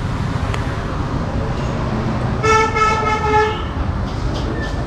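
A vehicle horn sounds once, a steady single-pitched toot lasting about a second, over the low rumble of street traffic.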